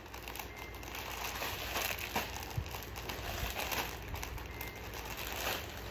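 Rustling and crinkling as folded clothing sets and their wrapping are handled, with a few faint ticks.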